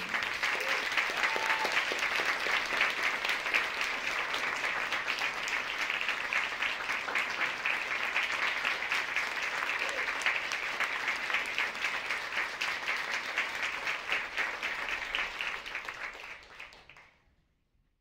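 Audience applauding steadily with dense clapping after a dance performance ends; it fades out near the end.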